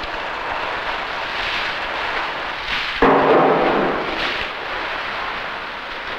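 Fish-processing factory machinery running: a dense, noisy rush that jumps suddenly louder about three seconds in and then slowly eases off.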